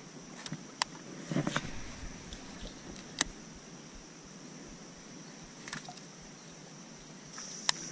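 A steady high-pitched drone of insects that grows louder near the end, with a few sharp clicks and a brief rustle about a second and a half in.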